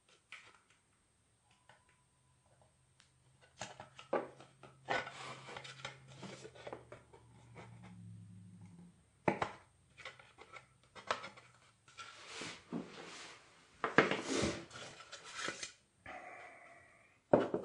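Thin white styrene plastic model-kit parts being handled and fitted together: scattered rubbing, scraping and light clicks of plastic on plastic, starting a few seconds in.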